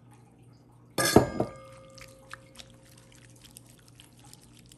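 Ginger-scallion water poured onto minced pork in a glass bowl, with a sharp glass clink about a second in that rings on briefly, then light clicks of wooden chopsticks against the glass bowl as the meat is stirred.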